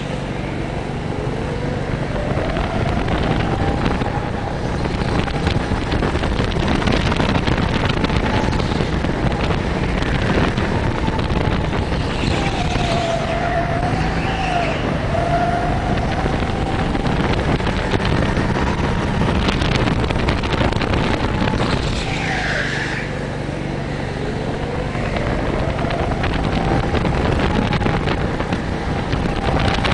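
Go-kart engine heard from the driver's seat, running hard and repeatedly rising in pitch as the kart accelerates, then dropping as it slows for corners.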